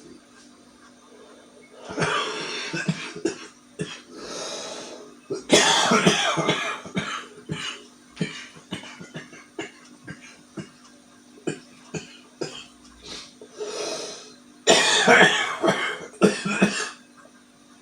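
A man's smoker's cough in the morning: three main fits of deep, repeated coughing, with shorter single coughs and drawn breaths in between.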